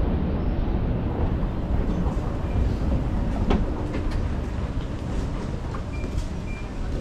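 Steady low rumble of a moving escalator being ridden down, with a sharp click about halfway through as it is stepped off; the rumble then eases into the general noise of a store floor.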